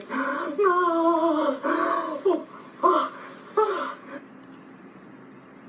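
A man's drawn-out, high-pitched moaning vocalisations, wordless and wavering in pitch, played back through a computer's speakers. They cut off about four seconds in, leaving only faint hiss.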